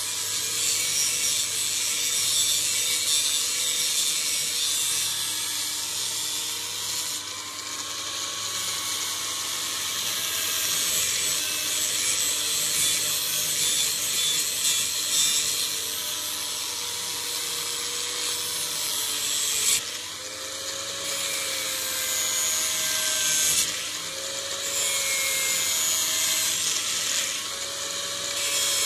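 Knife blade being sharpened on a power grinder: a steady harsh grinding hiss of steel against the abrasive, with a faint wavering whine underneath. The grinding sound changes abruptly twice past the middle.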